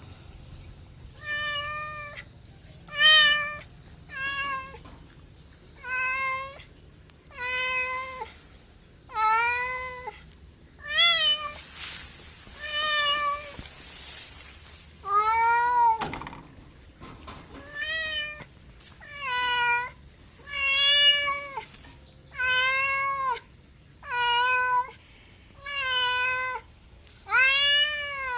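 A domestic cat meowing over and over, about fifteen meows at one every one and a half to two seconds. Each meow rises and falls in pitch. There is a short pause about halfway through.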